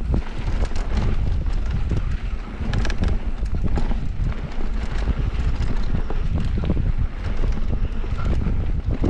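Wind buffeting the microphone while a mountain bike runs fast down a dirt trail, its tyres rumbling and its frame and parts rattling and knocking over bumps.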